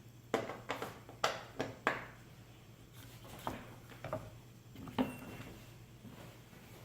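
Sharp clicks and knocks of a hand tool on metal as button head bolts are tightened into load cells: a quick run of five in the first two seconds, then a few scattered ones, one with a short ring about five seconds in.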